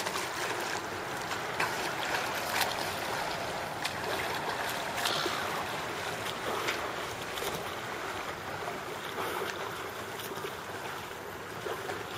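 Outdoor ambience at the edge of open water: a steady wash of wind and lapping water, with scattered short ticks and small splashes.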